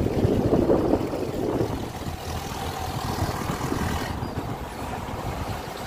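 Wind rushing over the microphone, with engine and tyre noise from a vehicle driving along a road.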